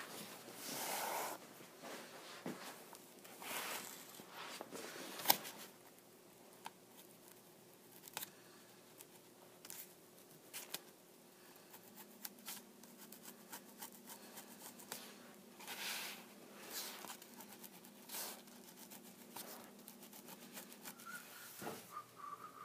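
Pen tip tapping and scratching on paper plans laid over foam board, dotting out traced lines, with irregular small clicks and occasional brief paper rustles.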